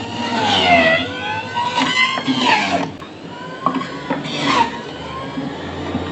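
Panasonic juicer-blender motor running, its whine dipping and rising in pitch several times, with a few knocks.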